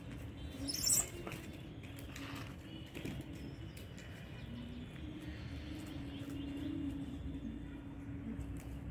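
A brief rustling swish about a second in, over a steady low background hum.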